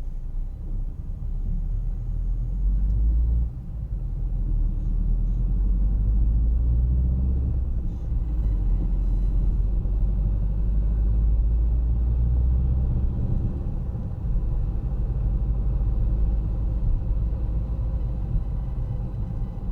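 A car driving: the steady low rumble of its engine and tyres on the road.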